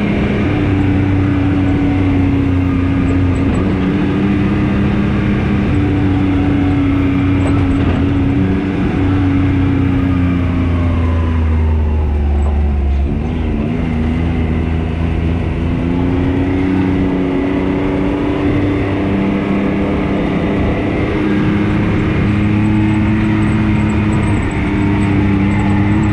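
Can-Am Maverick X3 RC side-by-side's turbocharged three-cylinder engine running steadily at driving speed, with wind and road noise. About halfway through, the engine note drops as it slows, then climbs back up as it speeds up again.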